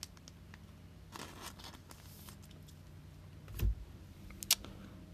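Quiet handling of trading cards: a soft rustle of a plastic card sleeve, then a dull tap on the table and a sharp click near the end, over a faint steady low hum.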